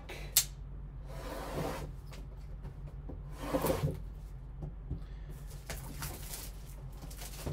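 Gloved hands opening a trading-card box and lifting out a wrapped pack: a sharp click about half a second in, then soft rustling and rubbing of cardboard and plastic packaging, with a longer spell of rustling near the end over a steady low hum.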